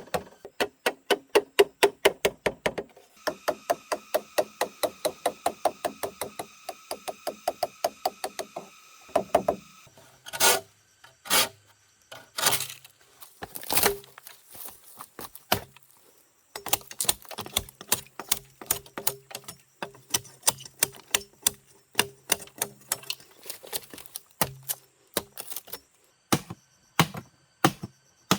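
A hand tool striking wood in fast, steady blows, several a second. Around the middle come a few slower, heavier single blows, then the fast strikes resume.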